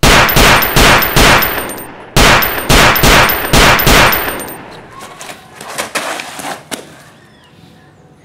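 Two rapid strings of handgun shots, about three a second, with a short break about two seconds in. The echo fades afterwards, with a few faint clicks.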